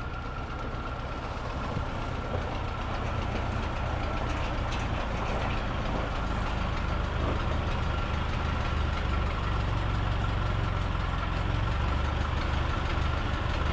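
1944 Ford 2N tractor's four-cylinder flathead engine running steadily, freshly rebuilt carburetor in place, with a thin steady high whine over the engine note.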